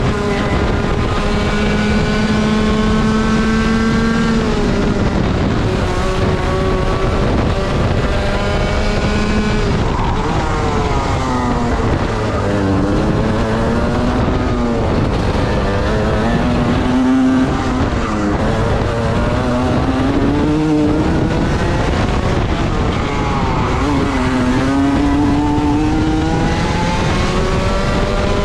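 Racing kart engine running hard at high revs. It holds a high pitch along the straight, then drops and climbs again several times as the kart brakes into and accelerates out of corners.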